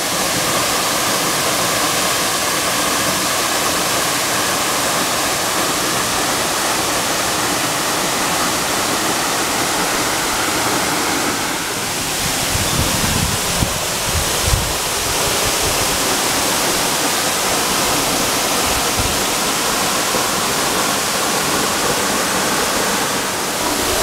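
Waterfall plunging down a rock face into a pool: a loud, steady rush of water. A few low bumps come through about halfway.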